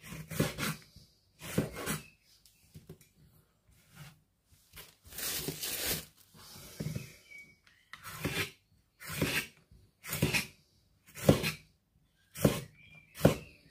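Kitchen knife slicing red chillies on a wooden chopping board: separate cuts, about one a second in the second half, with a longer scrape about halfway through.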